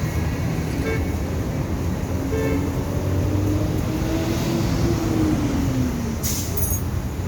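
Motor vehicle noise: a steady low rumble, with a pitch that rises and then falls over a few seconds. Two short horn-like toots come about a second in and again a second and a half later.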